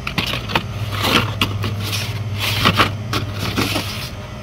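Carded Hot Wheels cars in plastic blister packs rustling and clacking as they are flipped through by hand, a string of short, irregular crinkles over a steady low hum.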